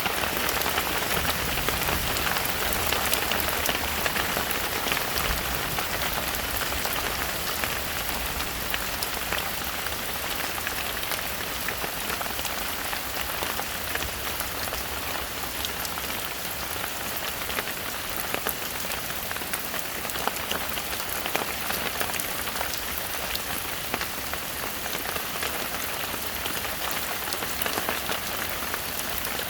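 Heavy rain falling steadily in a forest, a dense hiss with many sharp drop-ticks, a little heavier in the first few seconds.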